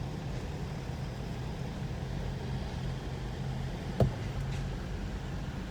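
Steady low rumble of city road traffic, with a single short sharp knock about four seconds in.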